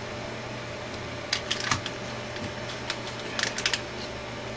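Small plastic packaging, an anti-static bag, being handled and unwrapped: a few short clusters of sharp crinkles and clicks over a steady low hum.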